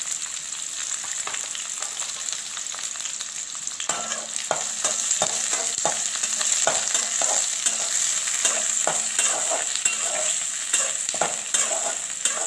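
Sliced onions and green chillies sizzling in hot oil in a metal kadai, a steady hiss. From about four seconds in, a metal spatula stirs them, scraping and clicking against the pan many times.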